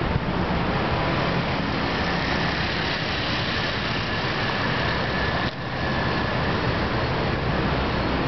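Steady road traffic noise from a busy multi-lane city avenue, with cars and motorcycles running past.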